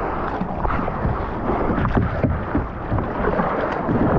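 Wind buffeting the microphone over water sloshing and splashing around a kayak in the surf, with irregular small splashes and knocks throughout.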